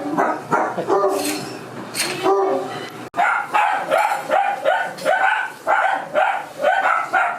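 A dog barking over and over. After a brief break about three seconds in, the barks come about twice a second.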